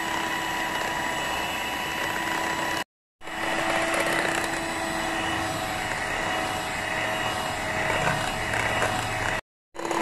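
Electric hand mixer running at a steady speed, its twin wire beaters whipping eggs and powdered sugar together in a glass bowl: an even motor whine with whirring. The sound cuts out briefly twice, about three seconds in and again near the end.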